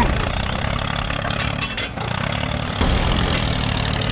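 Tractor engine running steadily at idle, with a brief louder burst of noise near three seconds in.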